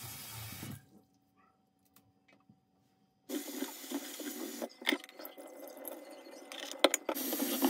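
Kitchen tap running into a stainless steel sink while mint leaves are rinsed in a plastic bowl. The water sound cuts out for about two seconds, then comes back with a few sharp knocks as the bowl is handled in the sink.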